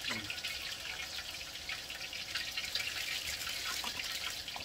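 Batter-coated pork pieces for tangsuyuk deep-frying in a wok of hot oil: a steady sizzle full of fine crackles.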